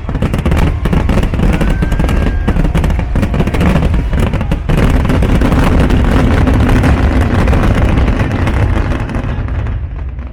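Dense fireworks barrage of rapid cracks and bangs with a short whistle about two seconds in, dying away near the end.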